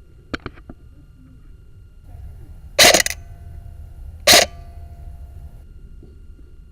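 Airsoft gunfire: a few quick sharp clicks, then two loud short bursts about a second and a half apart.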